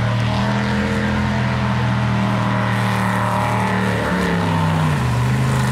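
V8 engine of a jet sprint boat running hard at high revs, a steady note whose pitch shifts briefly about four seconds in before settling again.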